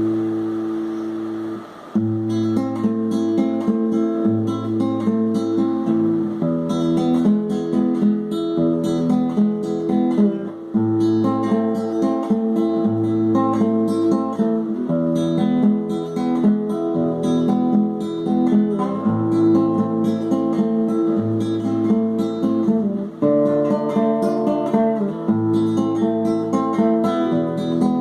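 Acoustic guitar music with strummed chords over a moving bass line. A chord rings at the start, there is a brief break about two seconds in, and then steady playing.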